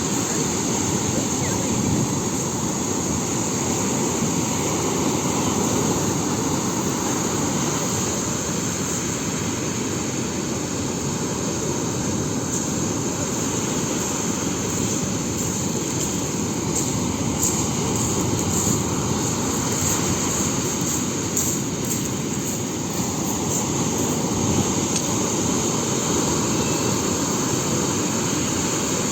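Sea waves breaking and washing on the shore: a continuous surf noise that swells and eases slowly.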